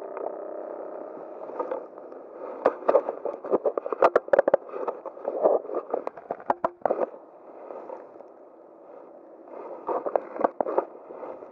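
Handling noise on a chest-harness camera as it is adjusted: rubbing, scraping and clicking against the microphone in two bouts, the first and longer starting about two and a half seconds in, the second near the end.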